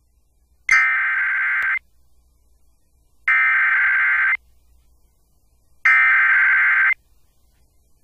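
Emergency Alert System SAME header: three bursts of digital data tones, each about a second long and about a second and a half apart, that encode the alert and mark the start of a severe thunderstorm warning.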